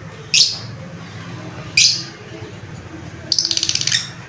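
Lovebird calling: two sharp, high chirps that slide down in pitch, about a second and a half apart, then a quick rattling run of chirps near the end.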